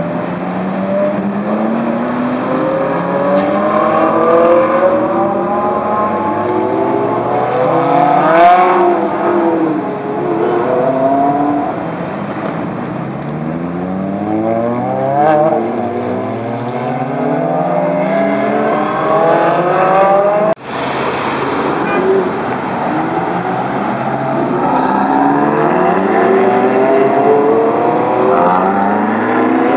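Several Ferrari sports cars accelerating hard away one after another, their engines revving up through the gears in overlapping rising notes. There is one sharp crack about eight seconds in.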